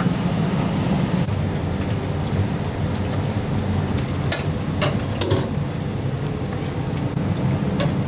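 Busy kitchen noise: a steady rain-like hiss over a low hum, with a few sharp clinks from about three seconds in.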